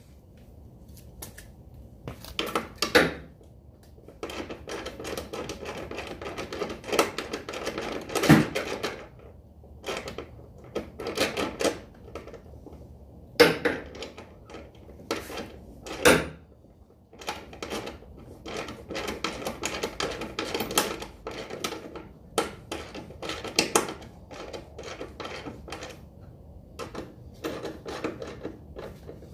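Metal hand tools clicking and clanking in irregular bouts of rapid clicks, with a few sharp knocks standing out, about 3, 8, 13 and 16 seconds in.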